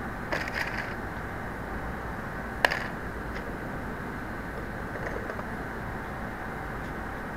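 Steady hum of an assembly plant floor, with a brief clatter of handling at the steering-assembly fixture under a second in and one sharp knock about two and a half seconds in.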